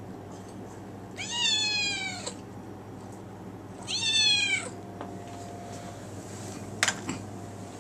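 Grey kitten meowing twice to beg for food: two meows about two and a half seconds apart, each rising then falling in pitch. A sharp click near the end.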